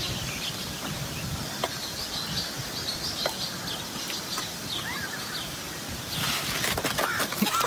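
Outdoor farmyard ambience with small birds chirping repeatedly. A louder rustling hiss comes in about six seconds in.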